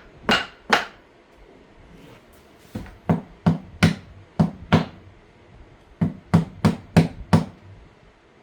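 Hammer blows on a scrap-poplar wooden frame, knocking a twisted piece into line: two strikes, a pause, a run of six, another pause, then five more, about two to three a second.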